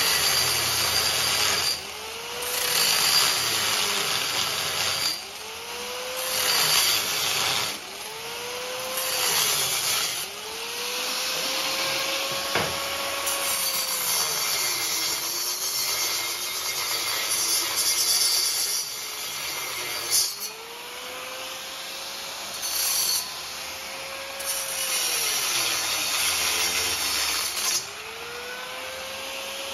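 Electric angle grinder cutting steel square tubing in about nine bouts of a few seconds each. Its motor whine sags in pitch as the wheel bites into the steel and rises again as it eases off, over a high hiss of cutting.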